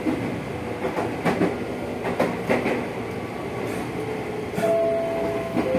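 JR 205-series electric commuter car running on the rails, heard inside the car: the wheels knock over rail joints a few times in the first three seconds. About four seconds in, steady whining tones from the motor car's Toyo Denki IGBT VVVF inverter and traction motors come in, and they step to a new pitch near the end.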